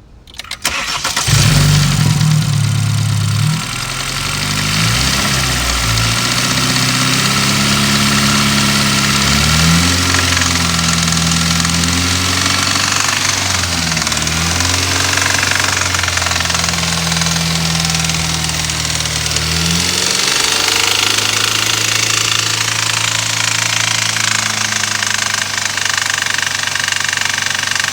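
BMW 320i's N20 2.0-litre turbocharged four-cylinder starting about a second in, then revved up and down in park several times before settling to a steady idle near the end, with a rattling over the engine note. Mechanics have put the rattle down to the lifters.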